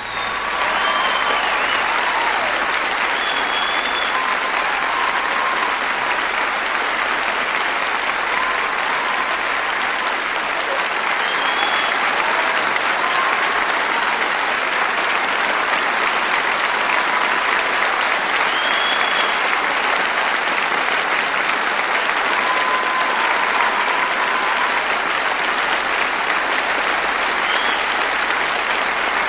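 Audience applauding steadily and loudly, with a few short whistles, as the song ends.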